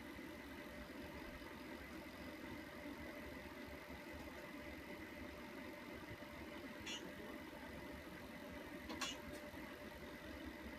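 Fetal heartbeat at 20 weeks of pregnancy, heard through a Doppler ultrasound's speaker, with two short clicks in the later part.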